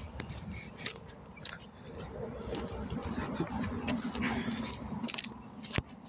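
Footsteps through pasture grass and rubbing of a handheld phone as it is carried: irregular clicks and rustles over a low rumble.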